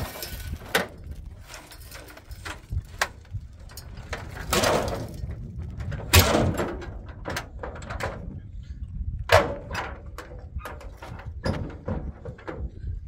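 Steel tailgate of a pickup truck being raised and banged shut, then its latches rattled and clanked as they are fastened: a run of metal knocks and rattles, the loudest a single bang about six seconds in.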